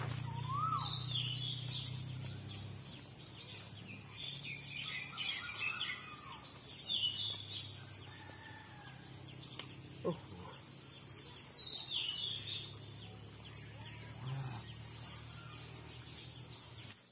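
Forest ambience: a steady high-pitched insect drone, with a bird repeating a short falling call three times, about every five seconds.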